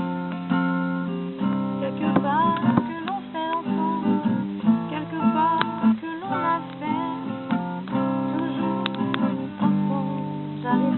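Acoustic guitar playing an improvised piece, with chords strummed and notes plucked.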